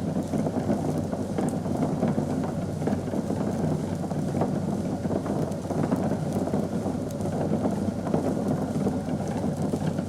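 Liquid bubbling steadily in a brewing pot: a dense, continuous patter of many small bubbles.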